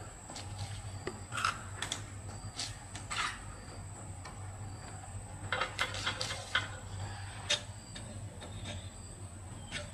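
Light metal clicks and clinks of hand tools and small engine parts being handled, scattered irregularly, with a quick run of taps about six seconds in.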